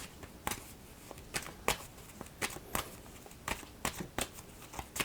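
A deck of oracle cards being shuffled and handled by hand: a run of short, light card snaps and flicks, about two or three a second.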